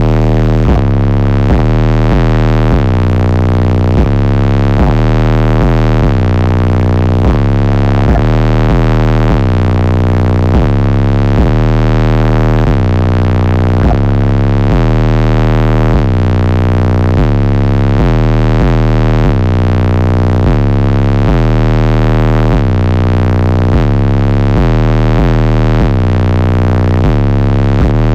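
Bass-heavy music played very loud through a car audio system's subwoofers, the deep bass notes stepping in pitch every half second or so in a repeating pattern.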